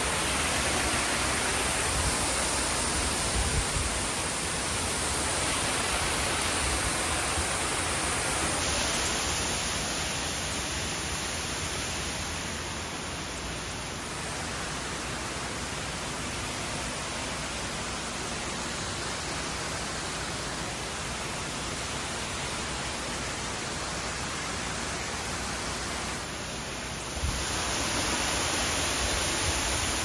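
Steady rush of a waterfall, a dense even noise of falling water that changes abruptly twice where one recording gives way to another.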